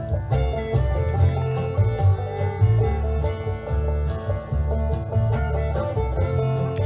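Background music in a bluegrass style with plucked banjo and guitar over a steady bass.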